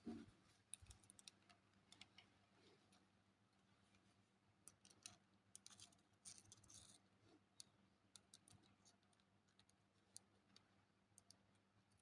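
Near silence with scattered faint clicks and taps of a multimeter and its probes being handled against a small fuse, testing a blown fuse for continuity.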